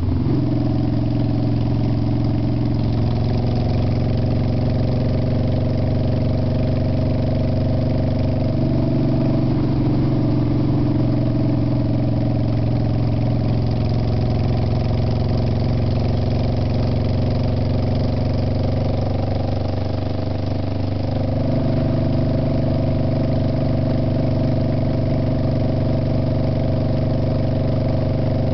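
Motorcycle engine running steadily at road speed, with wind and tyre noise over it. Its pitch steps a few times as the throttle changes, with a brief dip about two-thirds of the way through.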